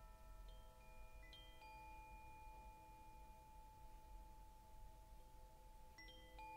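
Faint chimes softly struck, a few clear tones at a time, each ringing on. New strikes come about half a second in, twice around a second and a half in, and again near the end.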